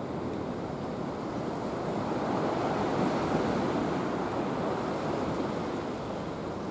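Sea surf washing against a concrete breakwater, mixed with wind buffeting the microphone: a steady rushing noise that grows louder for a couple of seconds in the middle.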